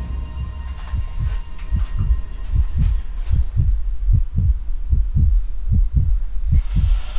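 Heartbeat sound effect: low paired thumps repeating in a steady lub-dub rhythm, a little under a pair and a half per second, with a hiss rising in near the end.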